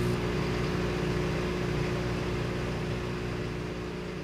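Microwave oven running: a steady electrical hum with fan noise, slowly fading toward the end.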